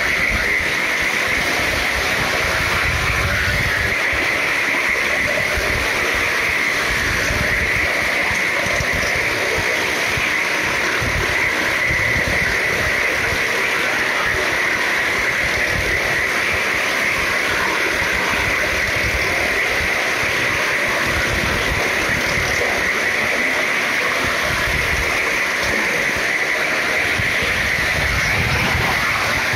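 Several motorcycles and cars running round the wall of a well-of-death drum together, their engines blending into one loud, steady, noisy drone with no breaks, held inside the enclosed plank drum.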